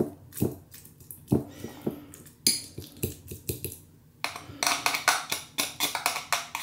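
A spoon clinking and scraping against a dish while mashing wet cat food. A few separate taps come first, then from about four seconds in a fast run of strokes, about five a second.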